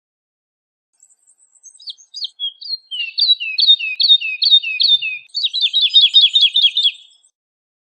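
Woodlark singing one phrase of repeated, downward-sliding fluty notes. It starts softly about a second in, strengthens into a steady series of notes, then speeds up into a quicker run near the end before stopping.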